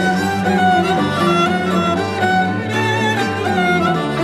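Music: a bowed string instrument playing a wavering melody over sustained low notes.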